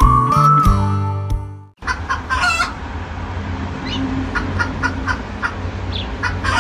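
Background music with a melody stops abruptly a little under two seconds in. After a brief gap comes a different recording: a steady low hum under a series of short, repeated animal calls, the loudest just after the music ends.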